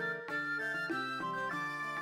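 Instrumental background music: a melody that moves through short notes over a steady low drone.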